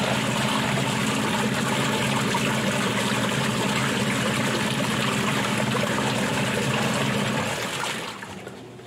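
Praxis 10 kg twin-tub washing machine's wash tub churning water during a softener rinse: a steady motor hum under sloshing water. The hum cuts out about seven and a half seconds in, and the sound falls much quieter.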